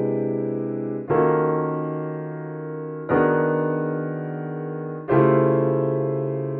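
Piano playing dissonant six-note polychords, voicings of pitch-class set 6-31 made of one triad stacked over another: G-sharp diminished over C major, D-flat augmented over E-flat minor, G-sharp diminished over E-flat minor, then C major over D-flat augmented. Each chord is struck and left to fade for about two seconds. The first is already ringing, and the next three come in about one, three and five seconds in.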